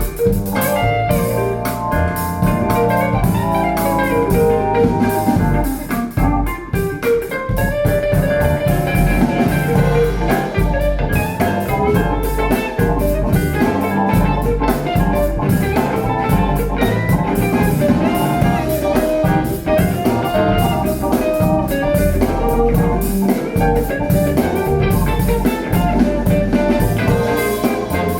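A blues-tinged song with guitar and a drum kit, played back through Wharfedale Linton Heritage loudspeakers.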